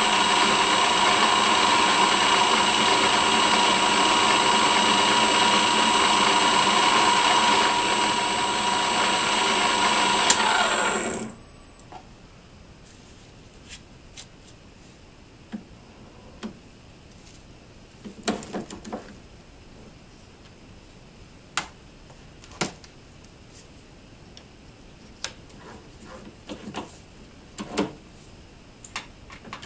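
VFD-driven metal lathe running steadily with a high whine, its collet chuck spinning a steel tee bolt blank against a chamfer bit; it stops abruptly about eleven seconds in. After that come scattered light clicks and knocks of the part being handled at the chuck.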